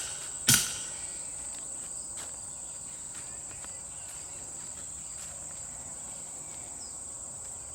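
Insects chirring in a steady high-pitched drone, with one sharp click about half a second in.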